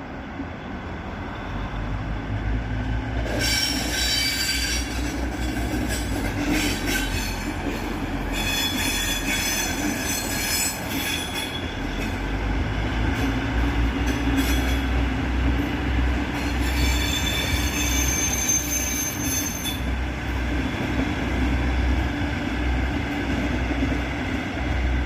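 DB class 612 diesel multiple unit pulling out of a siding, its wheels squealing high-pitched on the rails in three bouts, about 3, 8 and 16 seconds in. Underneath, the diesel engines run with a steady low rumble.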